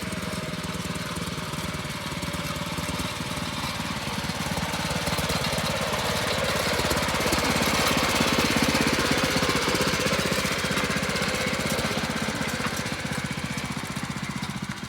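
Petrol rototiller's small engine running with a fast, even firing beat, growing louder toward the middle and easing off a little near the end.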